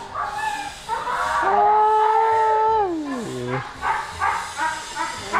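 Young Asian elephant calling: one long, steady call that slides down steeply in pitch about three seconds in, followed by a run of short calls.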